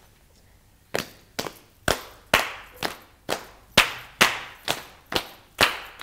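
Hands clapping in a slow, steady beat of about two claps a second, starting about a second in.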